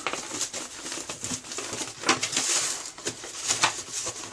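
Irregular rustling and scraping of hands wiping and cleaning up old toilet wax with rags or paper towels, in quick uneven strokes with a few sharper scrapes.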